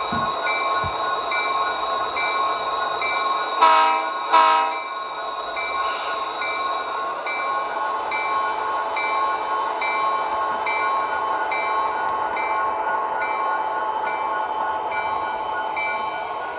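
Sound decoder of an HO-scale GP40-2 model locomotive playing diesel engine sound with the bell ringing steadily, through the model's small speaker. The horn gives two short blasts about four seconds in, and later a whine rises gradually over the engine sound.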